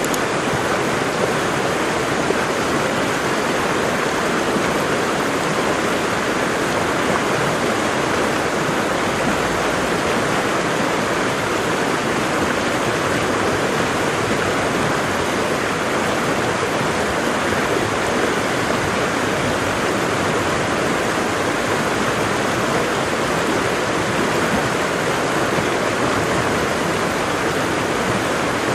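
Waterfall: water falling and rushing in a steady, even roar that neither rises nor falls.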